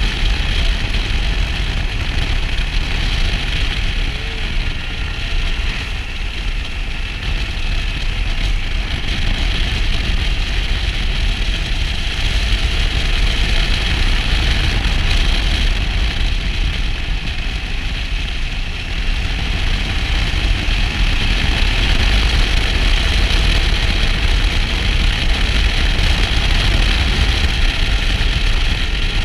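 Motorcycle cruising at roughly 70–80 km/h, its engine running under a steady rush of wind over the microphone.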